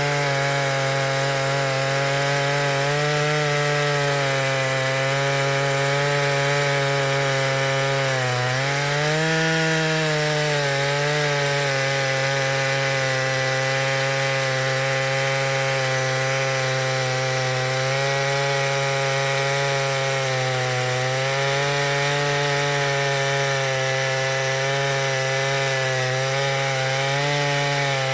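Stihl MS881 two-stroke chainsaw on an Alaskan chainsaw mill, running steadily at high revs while ripping a log lengthwise. The engine pitch sags briefly about eight seconds in as the chain loads up, then recovers.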